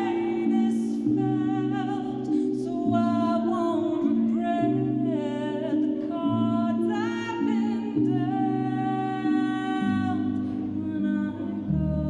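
A woman singing live into a microphone, a slow melody with sliding notes, over low held notes that change every second or so.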